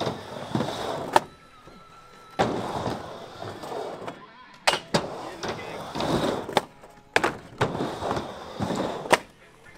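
Skateboard riding back and forth on a vert ramp: the wheels rush over the ramp surface on each pass, about every two seconds, with sharp clacks between the passes.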